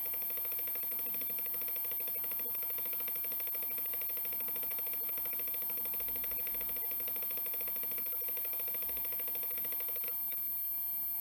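Hitachi Deskstar 7K80 80 GB IDE hard drive busy with a 1 GB file copy: its heads seeking in a rapid, dense clatter over the steady whine of the spinning platters. About ten seconds in the seeking stops and only the steady whine remains.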